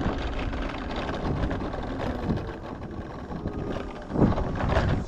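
Steady engine and road noise from a moving vehicle, with wind buffeting the microphone, and a brief louder sound a little after four seconds in.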